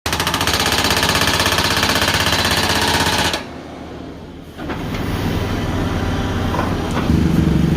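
Excavator-mounted hydraulic breaker hammering in rapid, even strokes, stopping abruptly about three and a half seconds in. The excavator's engine then runs on and grows louder near the end.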